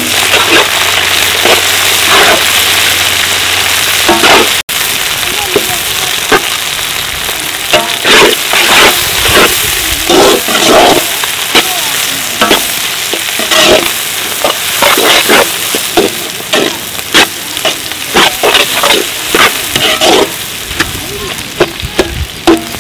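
Sliced onions and green chillies sizzling in hot oil in a large iron kadai, turned over with a flat metal ladle that scrapes the pan in repeated quick strokes. The onions are being sautéed toward golden brown for a masala base.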